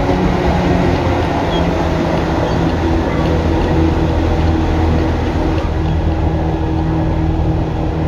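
Tokyu 8500 series electric train running, its Hitachi and Toyo Denki traction motors giving a steady hum of several tones over the rumble of wheels on rail.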